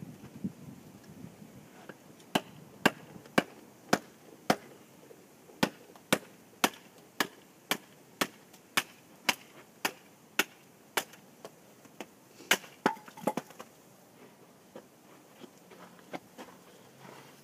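Gerber Jr. miniature machete splitting wood on a chopping block: a run of about twenty sharp woody knocks, roughly two a second, starting about two seconds in and thinning to a few lighter taps near the end.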